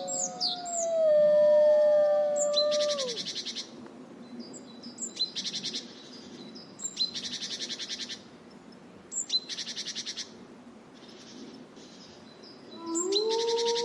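Wolves howling: two long, overlapping howls sliding slowly down in pitch over the first three seconds, then a new howl rising and holding near the end. Between them, forest birds sing, with short rapid trills repeated every couple of seconds and sharp chirps.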